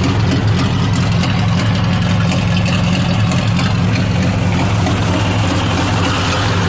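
Ford NAA tractor's four-cylinder overhead-valve engine idling steadily.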